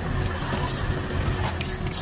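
Background music, with a short hiss from an aerosol spray can near the end.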